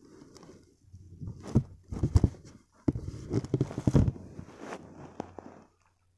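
Irregular soft knocks and rustling that stop shortly before the end: handling noise on a phone's microphone.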